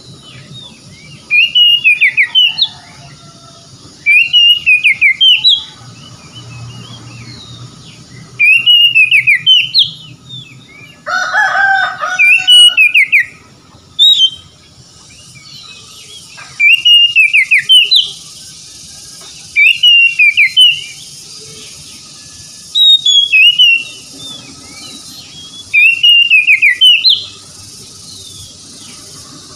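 Oriental magpie-robin singing: a loud, quick whistled phrase of about a second and a half, rising and falling, repeated every three seconds or so. A lower, different call breaks in about eleven seconds in.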